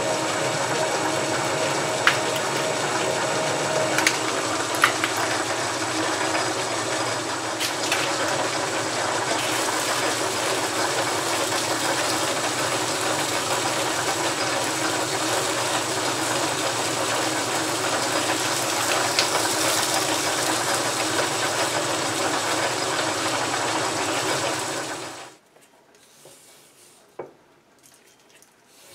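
South Bend 11 metal lathe running steadily, its motor and belt drive whirring while a threading tool cuts internal threads in a thick steel back plate, with a few sharp ticks in the first five seconds. The running stops abruptly about 25 seconds in, leaving only faint clatter of handling.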